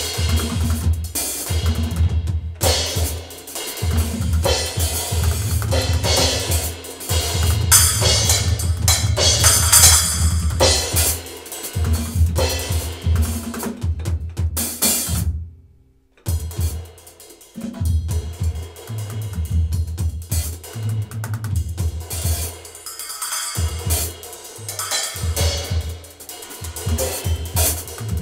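Drum kit playing a Latin candombe groove, with bass drum, snare, hi-hat and cymbals, over a backing track with a bass line. All the sound stops abruptly for about half a second roughly fifteen and a half seconds in, then the groove picks up again.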